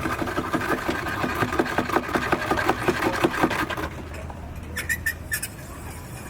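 A machine running with a fast, even mechanical rattle that stops about four seconds in, followed by a few light clicks.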